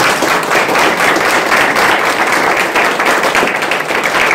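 A group of people applauding, many hands clapping at a steady level.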